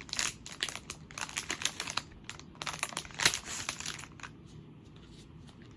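Wrapper on a pack of patterned craft paper being torn open and handled, crinkling in quick irregular crackles with one sharp loud crackle about three seconds in, then dying down near the end.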